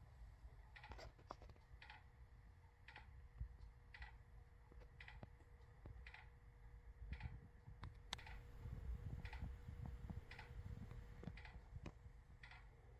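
Near silence: room tone with a faint, even ticking about once a second and a few faint low rumbles in the second half.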